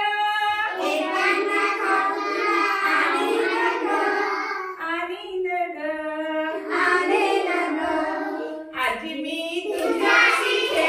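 Young children and a woman teacher singing a Marathi action rhyme together, with brief breaks between lines.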